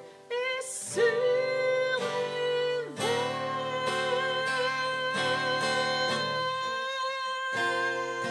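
A woman singing in French over a strummed acoustic guitar. She holds long notes, the last one from about three seconds in to the end with a slight waver, while the guitar strums chords underneath.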